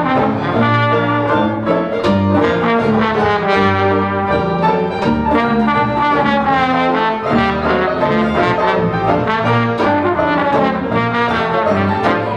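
Dixieland jazz band playing live, the trombone carrying the lead with sliding notes over a steady walking string bass and strummed banjo.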